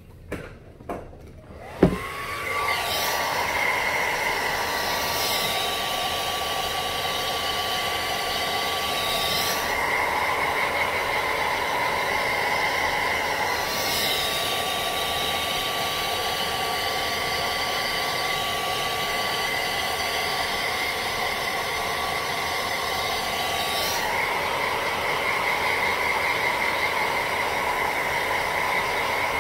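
Handheld hair dryer switched on about two seconds in after a couple of clicks, its motor whine rising quickly to a steady high tone, then blowing steadily to dry spritz on a wig cap. The rush of air changes in tone every few seconds as the dryer is moved around the head.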